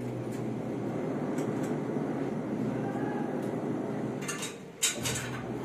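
A steady low rumble. About four to five seconds in come a few sharp knocks and clatters, the loudest a single knock near the end.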